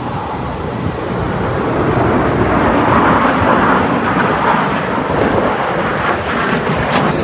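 Airplane flying past: loud engine and air noise that swells to its loudest about halfway through, then eases off slightly.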